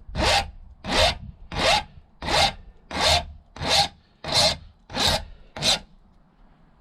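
Hand file dressing a freshly soldered clutch cable ferrule, cleaning off excess solder and sharp bits: nine even rasping strokes, about three every two seconds, that stop about a second before the end.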